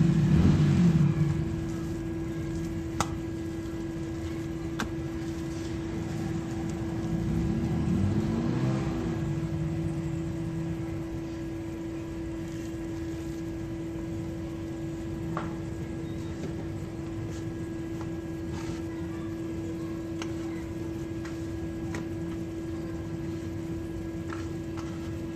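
A steady electrical or appliance hum with a low rumble beneath, and a few faint taps and soft handling sounds of hands kneading dough and patting flour onto a wooden board.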